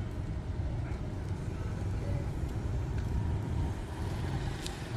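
Steady low rumble of city traffic and vehicles moving around an open car park, with no distinct single event.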